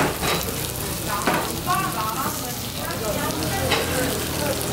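Beef liver, gopchang, garlic and onion sizzling on a hot metal grill pan, with a few sharp clicks of metal tongs against the pan as the food is turned.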